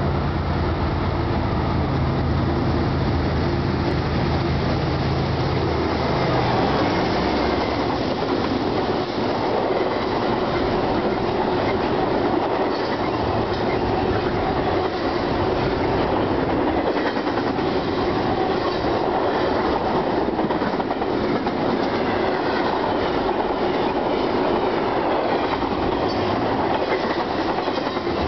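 Norfolk Southern double-stack container train passing close by: a low diesel engine note for the first six seconds or so, then the steady rumble of the well cars rolling past with a rhythmic clickety-clack of wheels over the rail joints.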